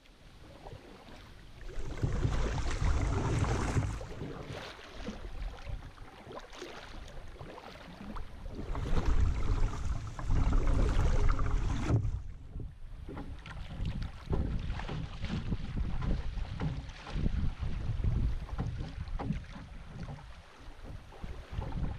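A kayak being paddled through riffled river water: water rushing and splashing around the hull and paddle blades, swelling and fading in surges, with wind rumbling on the microphone at times.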